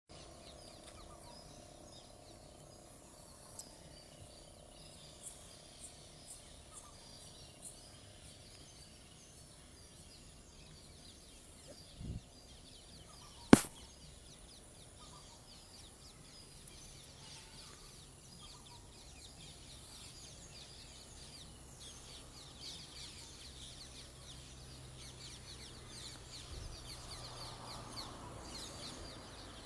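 Quiet outdoor ambience with faint, scattered bird and insect chirps, and one sharp click about halfway through.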